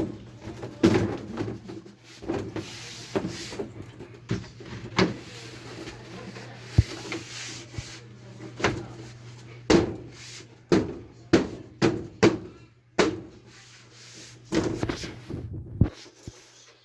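Carpentry work on wood: a string of irregular knocks and thuds, about one or two a second, over a steady low hum.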